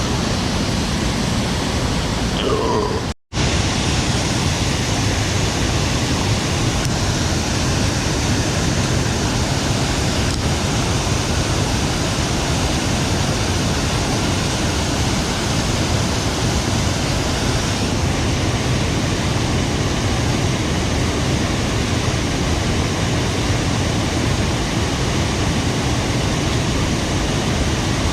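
Swollen, fast-flowing river pouring over a waterfall: loud, steady rushing water. The sound cuts out for a split second about three seconds in.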